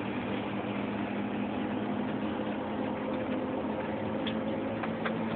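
Steady road rumble and low hum inside the cab of a Chevy K5 Blazer rolling down a canyon road under tow with a broken transmission, with a couple of light clicks near the end.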